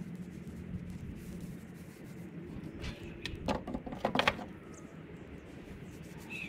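A few light knocks of wooden walking sticks against a wooden fence, bunched between three and four seconds in, over a steady low background.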